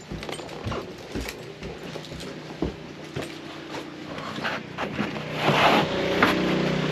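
Irregular footsteps and handling knocks. About five and a half seconds in comes a short rushing noise, and after it a steady low mechanical hum starts near the end.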